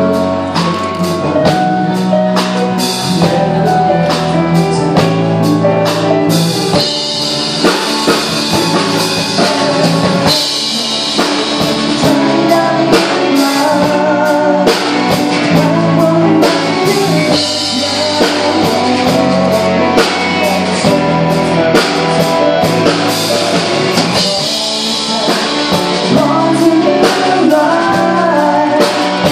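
Live rock band playing through a PA: a male singer over electric guitars and a steady drum beat.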